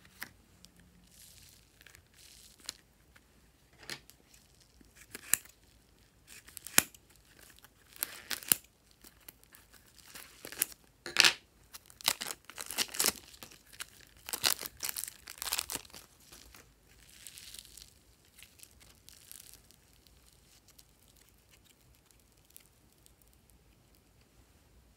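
Thin plastic packets crinkling and crackling as soft clay is squeezed out of them by hand, in irregular bursts that come thickest midway and die away in the last few seconds.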